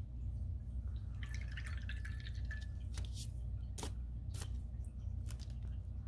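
Steady low background hum, with a short patch of faint crackling about a second in and five sharp little clicks spread over the second half.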